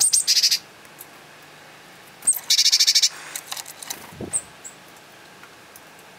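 Small birds calling: two bursts of rapid, high chattering about two seconds apart, each opened by a thin high note, followed by a few fainter chirps.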